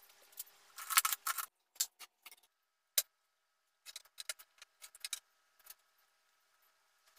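Hand tools being handled on a workbench: a steel carpenter's square, a wooden ruler and a pencil picked up and set down, giving a series of light clacks and knocks, densest about a second in, with one sharp click about three seconds in and another cluster a second later.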